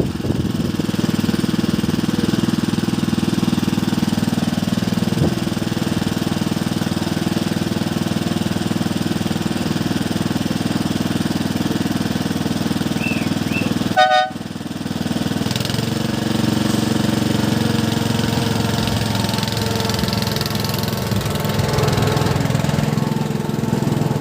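Miniature railway locomotive's engine running steadily, with a short horn toot about fourteen seconds in.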